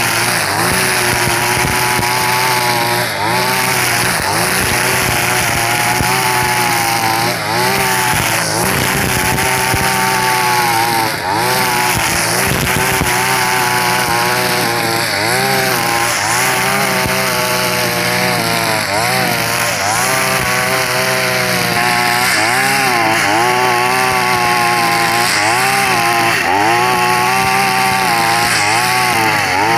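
Backpack brush cutter's 42cc engine running at high speed, its square 2.4 mm nylon line slashing through tall cogon (lalang) grass. The engine's pitch dips briefly and recovers every second or two as the line bites into thick grass, with a steady hiss of cutting over it.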